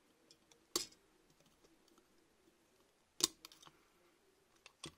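A few sharp clicks and clacks of hard metal and plastic parts knocking together as an opened airsoft AEG gearbox and its cylinder assembly are handled; the loudest is about three seconds in.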